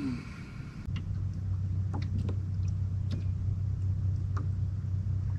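A boat motor comes on about a second in and runs with a steady low hum, with a few light clicks over it.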